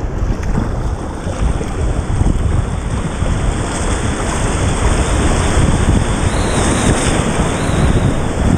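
Loud rushing whitewater of a river rapid, heard close up from a kayak running through it, with wind buffeting the microphone.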